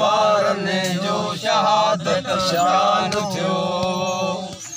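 Men chanting a Sindhi marsiya, a Muharram elegy, in long drawn-out melodic phrases, with several voices together.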